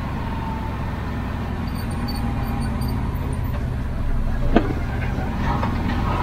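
Can-Am Defender Max HD10 side-by-side's V-twin engine running while driving, heard from inside the cab: a low steady drone that slowly grows louder, with one sharp knock about four and a half seconds in.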